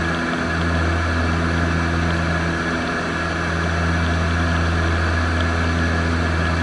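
Antonov An-24's turboprop engines running steadily, a constant low propeller drone with a stack of even tones above it.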